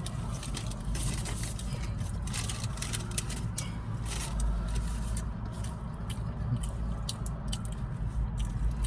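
Close-up eating sounds: chewing a mouthful of loaded potato with crunched tortilla chips, with many irregular small clicks and crackles. A low steady rumble runs underneath.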